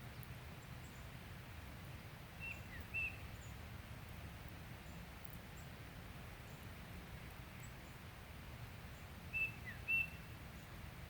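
A small bird calling twice, each time a quick group of two or three short high chirps, about seven seconds apart, over a steady low background rumble.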